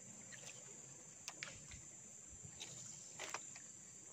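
Steady high-pitched chorus of insects, with a few faint clicks about a second in and again around three seconds in.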